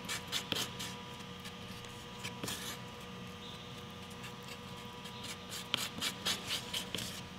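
Wooden stir stick scraping and smearing two-part Super Fil filler against cardboard as it is mixed. Short scrapes come in uneven runs with pauses between: just after the start, a little past two seconds in, and again near the end. A faint steady hum runs underneath.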